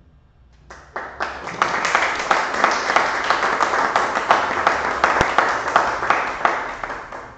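Audience applauding: a few claps about a second in build quickly into steady applause, which dies away near the end.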